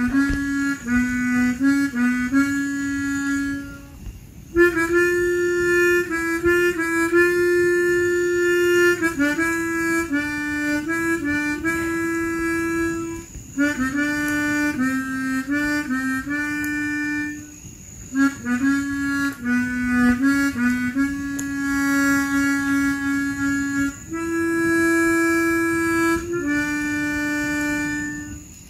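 Harmonica played solo: a melody of held notes and small note-to-note steps, in phrases broken by short pauses.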